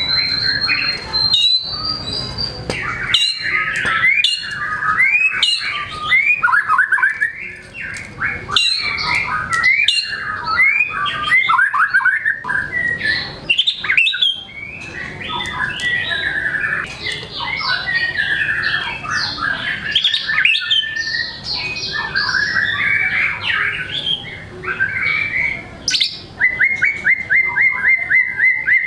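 White-rumped shama (murai batu) in full song, running through its repertoire without pause: quick, varied whistles, trills and sharp clicks. Near the end it switches to a rapid run of identical repeated notes, about eight a second.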